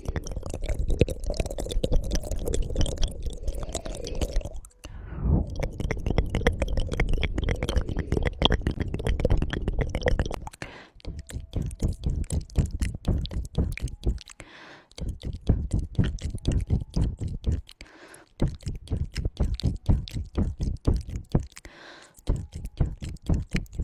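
Close-miked wet mouth sounds: rapid tongue clicking, dense for about ten seconds, then thinning into separate clicks several a second.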